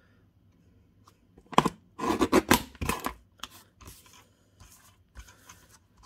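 Small Stampin' Up paper trimmer's sliding blade cutting through cardstock, loudest for about a second and a half starting a moment after one and a half seconds in, followed by softer rustles and taps of the cut card being handled.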